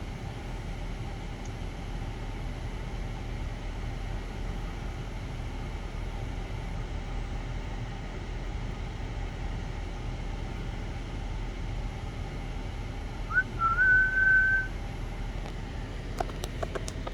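A short whistle over steady outdoor background noise: about 13 seconds in, one clear note rises quickly and is then held for about a second.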